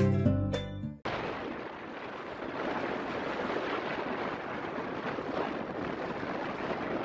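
A music jingle with a ticking mechanical pattern ends about a second in, cut off abruptly. Then a steady rush of wind over the microphone and road noise from a moving vehicle.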